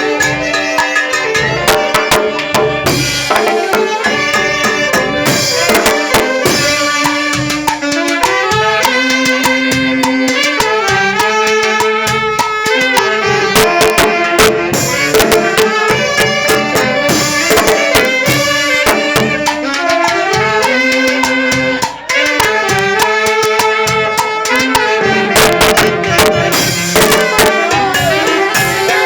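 Banda orquesta music: a melody in held, stepping notes over steady drums and percussion, in a Latin dance rhythm. It plays loud and even, with a brief drop about 22 seconds in.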